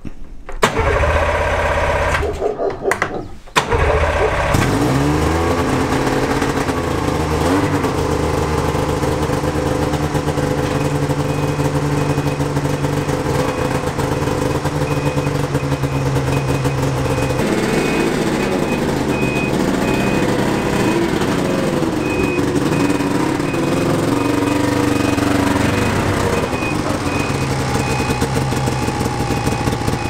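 Yamaha VK540 snowmobile's two-stroke twin engine being started: a first short run, a brief drop-out, then it catches about four seconds in and revs up. It settles to a steady run, and the revs rise and fall again from about halfway through.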